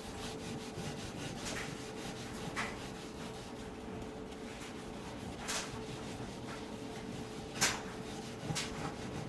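Brillo steel-wool soap pad scrubbing hard on the glass of a toaster oven door: a continuous rasping rub with a few sharper scratches.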